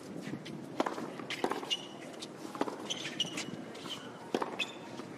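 Tennis rally on a hard court: a series of sharp pops, roughly one a second, as the ball is struck by rackets and bounces, with sneakers squeaking on the court surface in between.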